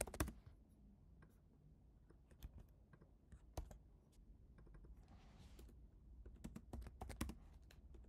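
Faint computer keyboard typing: irregular runs of keystrokes with short pauses between them.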